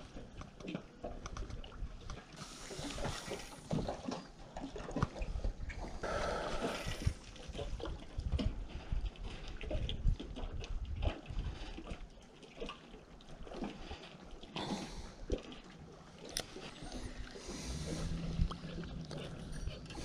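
Water sloshing and lapping around a kayak, with scattered knocks and clicks from handling a spinning rod and reel, and a few brief bursts of splashing.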